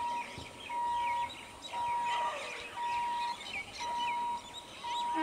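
Electronic beeper sounding a steady high tone about half a second long, repeating about once a second, with birds chirping around it.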